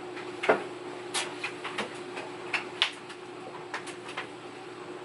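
Scattered light clicks and taps of things being handled, a dozen or so, the sharpest about half a second in and near the three-second mark, over a steady low hum.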